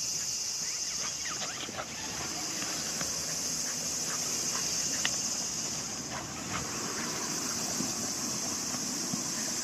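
Footsteps and light rustling on grass as a leashed beagle moves about with a frisbee and its handler walks after it, with scattered small clicks, over a steady high hiss.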